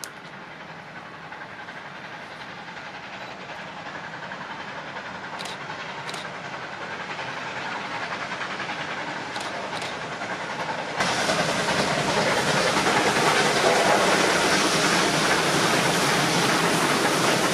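Victorian Railways K-class steam locomotive K 190 hauling heritage carriages, growing steadily louder as it approaches. About eleven seconds in the sound jumps to a loud steam hiss and train noise as it passes close by.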